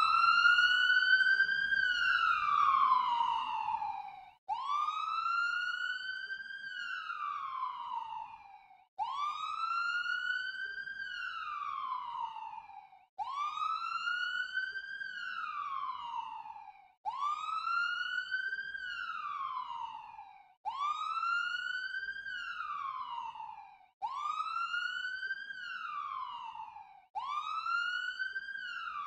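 Ambulance siren sound effect, played as about eight separate wails. Each wail rises quickly, then falls slowly, with a short silent break before the next. The breaks come closer together as it goes on, so the wails follow each other faster.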